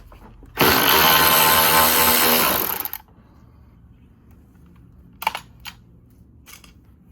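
Power drill running steadily for about two seconds, driving a screw out of the grille trim. A couple of small clicks follow a few seconds later.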